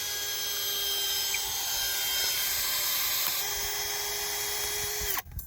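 Power drill running at a steady speed, a constant whine over a hiss, that cuts off abruptly near the end.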